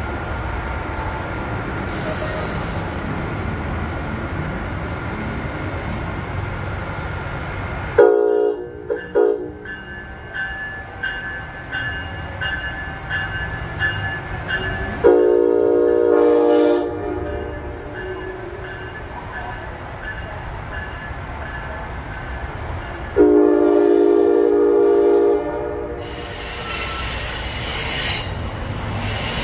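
Amtrak Siemens ACS-64 electric locomotive and train running by, then the locomotive's horn: two short blasts, followed later by two longer blasts, with a faint rhythmic high ringing between them.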